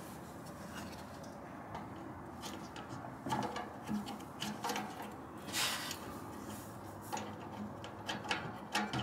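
Faint, scattered small clicks and light knocks of hands working the plastic wiring connector on a car's exhaust valve actuator, coming more often from about three seconds in.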